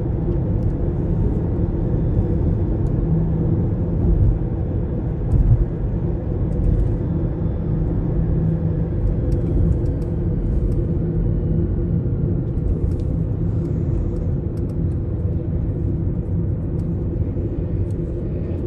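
Steady low rumble of road and engine noise inside a moving vehicle's cabin at cruising speed.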